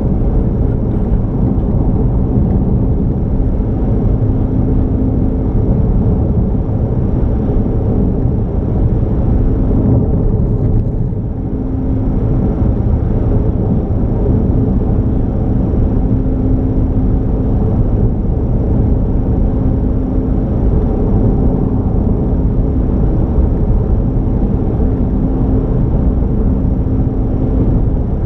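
Car driving at a steady speed: continuous road and engine rumble, dipping slightly for a moment near the middle.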